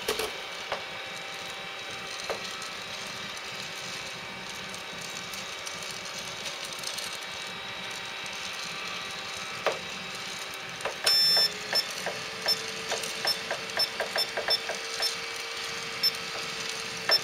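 Gene Cafe coffee roaster running with a steady hum as its drum turns the beans. About eleven seconds in it gives a long beep, the hum steps up slightly, and short high beeps and clicks repeat a few times a second as the machine switches to its cooling cycle.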